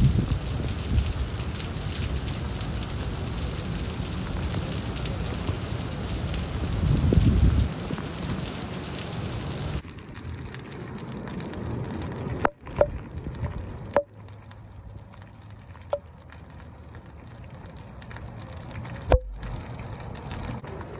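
Heavy rain with gusting wind on the microphone, swelling about seven seconds in. About ten seconds in it changes to quieter rain pattering on wet pavement, with a few sharp taps of drops.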